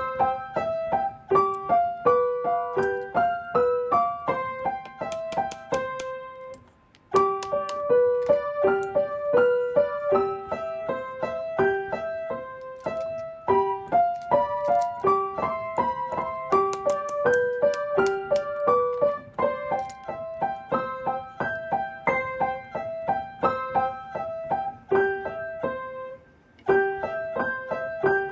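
Background piano music: a light, steady melody of separate notes, breaking off briefly twice and resuming.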